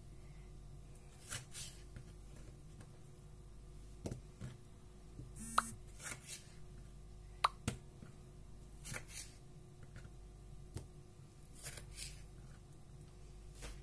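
Kitchen knife cutting tomatoes into wedges on a wooden cutting board: scattered quiet cuts and taps of the blade on the board, with two sharper clicks in the middle.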